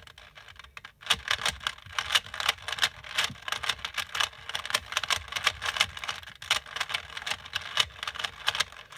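Plastic 3x3 Rubik's cube being turned quickly by hand, its layers clicking and scraping in a dense, rapid run that starts about a second in.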